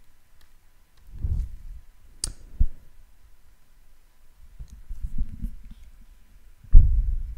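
Handling noise at a desk microphone: a few sharp clicks and low thumps, with the loudest thump near the end.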